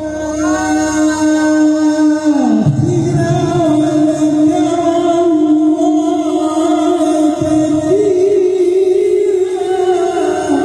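A male Quran reciter sustains a long, ornamented melismatic note in melodic tajwid recitation. The voice wavers and slides around a held pitch, dips and re-settles about two and a half seconds in, and steps up higher near the end.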